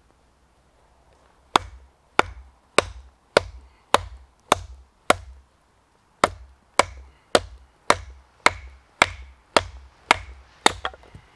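Batoning: a wooden stick knocking on the spine of a Condor Bushcraft Parang, driving the blade down to split a piece of wood. A steady run of sharp knocks, a little under two a second, begins about a second and a half in, with a pause of about a second midway.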